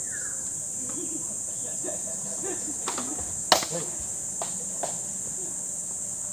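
Steady high-pitched drone of insects, with a few sharp knocks of objects being moved about in the back of a truck, the loudest just past halfway.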